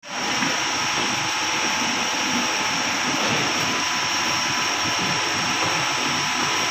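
Waste-sorting machinery running steadily: a constant loud mechanical drone with a thin, steady high whine over it.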